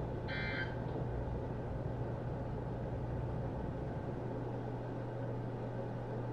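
NOAA Weather Radio broadcast carrying no voice: a steady hiss and low hum. About a third of a second in comes one short burst of EAS digital data tones, typical of the end-of-message code that closes an alert.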